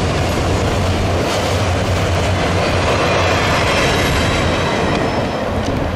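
Freight cars rolling past close by: a steady, loud rumble of steel wheels on rail with a few faint clicks of wheels over rail joints.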